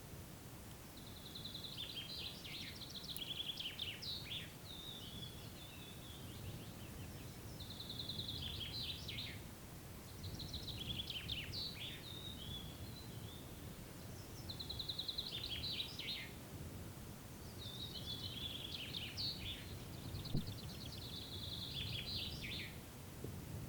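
A songbird repeating short, trilled song phrases, one every three to four seconds, over a faint low rumble.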